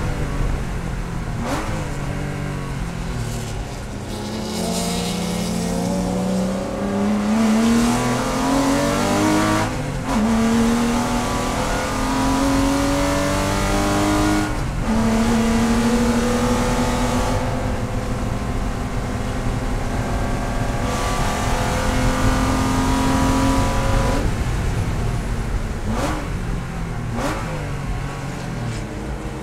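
Porsche race car engine heard from inside the cabin, revving up and down through the gears with the pitch rising between shifts and breaking sharply at each shift; several quick short bursts near the end as it downshifts.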